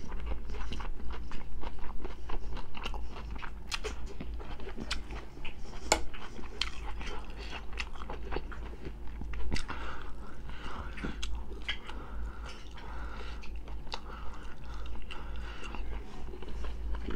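Close-miked chewing of crisp fresh cucumber with sausage and rice: a dense run of sharp crunches and clicks, one especially loud crunch about six seconds in.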